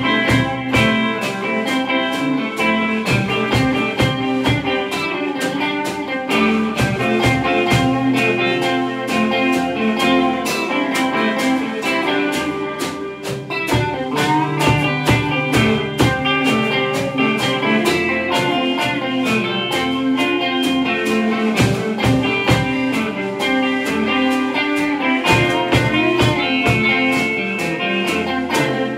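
Instrumental blues-rock played live by two electric guitars, one a Les Paul-style guitar, and a drum kit, with the drums keeping a steady beat under the guitars.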